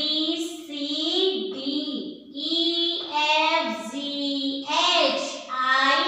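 A high voice chanting the English alphabet's letter names one at a time in a drawn-out sing-song, each letter held for most of a second.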